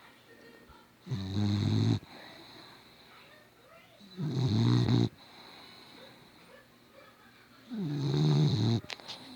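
Dog snoring very loudly: three long, low snores about three seconds apart, each lasting about a second, with quieter breathing between them. A few small clicks come near the end.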